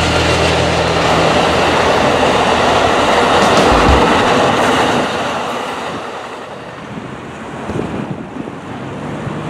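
Amtrak passenger cars rolling past on the rails, a loud steady rush of wheel and rail noise. About five seconds in it drops away to much quieter, wind-buffeted outdoor noise.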